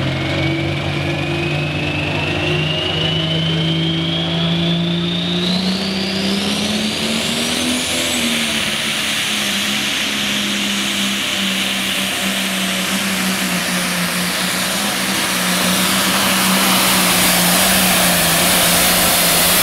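Turbocharged super/pro stock diesel pulling tractor launching and pulling the sled: the engine climbs in revs over the first several seconds with a high whistle rising alongside it as the turbochargers spool up. It then runs hard at steady high rpm, growing louder near the end.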